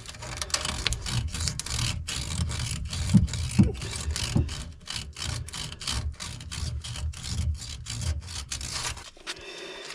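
Irregular scraping, rubbing and knocking of hand work on a gray-water drain pipe joint, with many short sharp scrapes at no steady rhythm.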